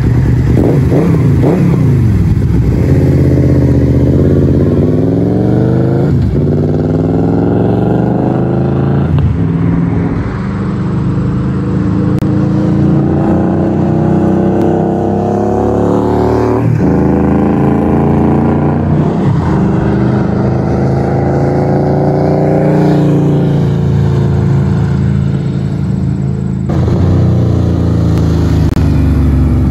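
Motorcycle V4 engine running through Vance & Hines Monster Oval mufflers. The pitch climbs for a few seconds and then drops suddenly, several times over.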